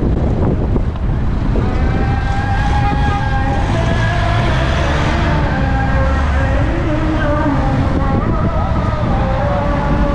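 Steady low rumble of wind on the microphone, with a faint melody of held notes stepping up and down in the background.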